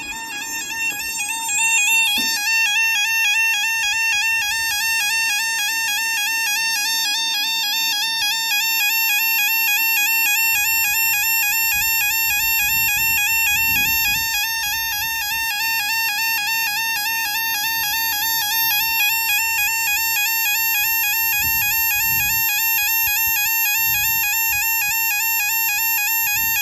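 Level crossing warning alarm warbling continuously, a rapid electronic two-tone yodel, as the barriers lower for an approaching train. It swells over the first couple of seconds and then holds steady and loud; a low rumble of the train begins to come in at the very end.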